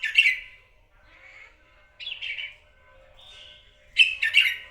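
Red-whiskered bulbul singing: three loud, short, warbling phrases about two seconds apart, with fainter chirps between them.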